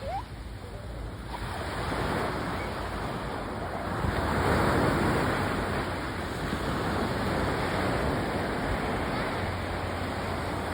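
Winter sea waves breaking and washing up the shore, a steady surf wash that swells about four seconds in and then eases, with wind buffeting the microphone.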